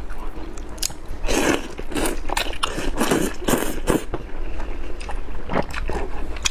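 Slurping and chewing of hot and sour sweet-potato glass noodles: a run of several slurps from about one to four seconds in, with short wet mouth clicks of chewing before and after.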